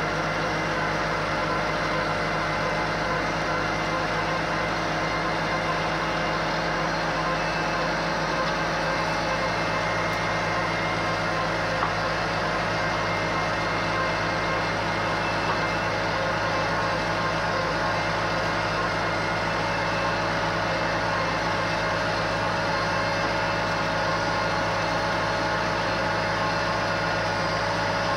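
McCormick F-series orchard tractor's diesel engine running steadily while it tows an implement earthing up soil along rows of newly planted apple trees. The engine note holds even throughout.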